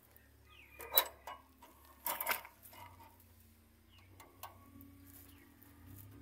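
Wire rabbit cage clicking and rattling as baby rabbits shuffle about on its wire floor: scattered sharp clicks, the loudest about one second in and a short cluster about two seconds in.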